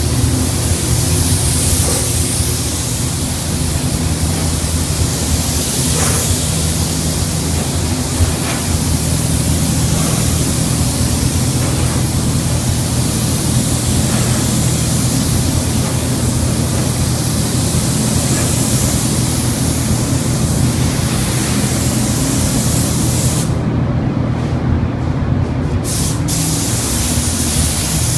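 Gravity-feed paint spray gun hissing steadily as it sprays paint onto a car body. The hiss stops for about two seconds near the end, then starts again, over a steady low hum.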